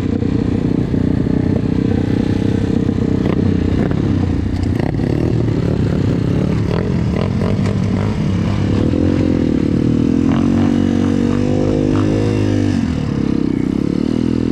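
BSE pit bike's single-cylinder four-stroke engine running under way, its revs rising and falling, with scattered clatter from the bike.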